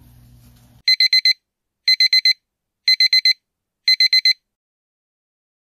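iPhone alarm going off: four quick electronic beeps repeated in groups about once a second, four groups in all, starting about a second in.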